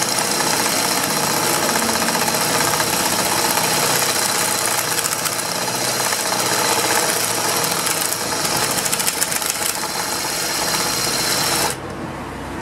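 Impact wrench hammering rapidly and continuously as it drives a bit held in a drill chuck. It stops abruptly near the end, leaving a quieter steady noise.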